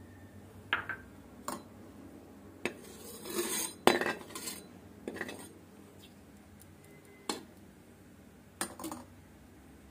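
A spoon clinking and scraping against a metal kadai with a little oil in it: scattered light knocks, a short scrape about three seconds in, and the loudest clink just after it.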